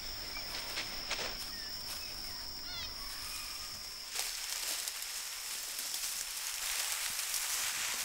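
Grassland wildlife ambience: a steady high insect drone with a short run of quick descending bird chirps about three seconds in. Midway the drone stops and a soft steady hiss takes over.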